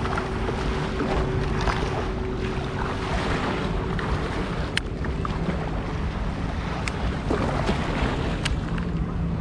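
Wind rumbling on the microphone over small waves lapping in shallow water. A faint steady hum runs through the first half, and a few light ticks come later.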